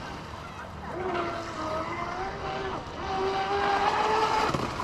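Electric RC speedboat running fast across open water: a pitched motor whine that dips and climbs again a couple of times as the throttle changes, then falls away near the end.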